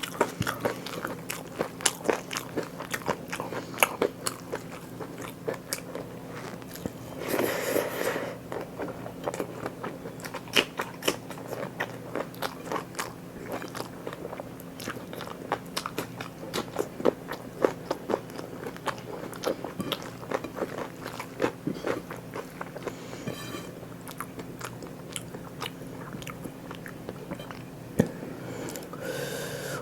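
Close-miked eating: a person biting, crunching and chewing food, with many quick wet mouth clicks, over a low steady hum. A brief louder rustling burst comes about eight seconds in.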